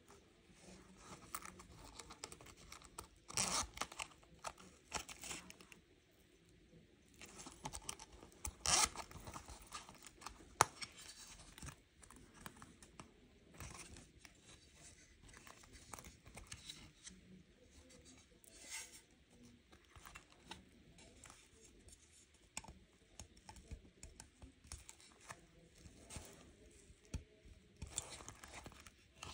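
Hands handling a Saffiano leather wallet with an aluminium card case: fingers rubbing and scratching the textured leather and the flap being opened, in soft intermittent rustles with a few louder scrapes and one sharp click about ten seconds in.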